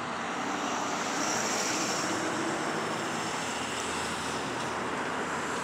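Steady rushing noise of a passing vehicle, swelling a little a second or two in and then easing off.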